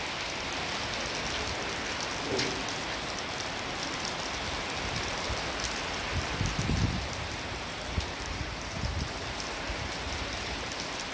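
Steady rain falling on grass, puddles and a concrete yard, with a few brief low bumps about two-thirds of the way through.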